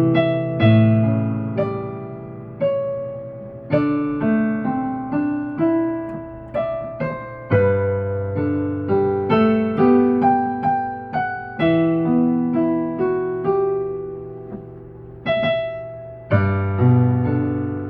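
Piano playing a slow ballad melody over low bass chords, each note struck and fading away, with no singing.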